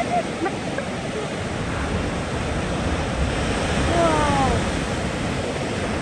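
Heavy surf breaking over a rock shelf and washing against a seawall: a steady rushing wash of water, swelling slightly about four seconds in. Over it comes a brief exclamation from a person, falling in pitch.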